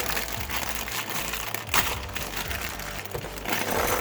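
Crinkling and rustling of a plastic LEGO parts bag being handled and torn open.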